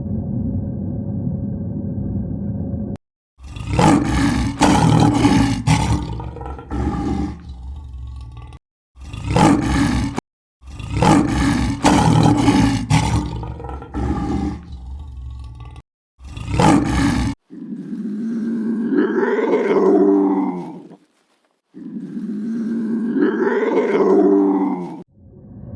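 A steady low rumble for about three seconds, then a run of loud, harsh farm-animal calls in short clips with abrupt cuts between them. It ends with two similar drawn-out calls, each about three seconds long, rising and falling in pitch.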